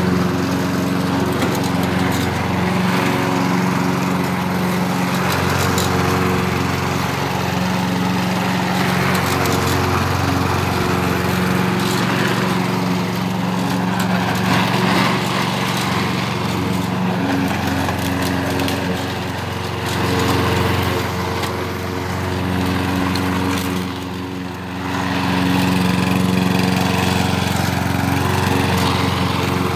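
2015 Lawn-Boy walk-behind gas mower running under load while cutting grass, its engine note holding steady. The sound dips briefly twice, about two-thirds of the way through.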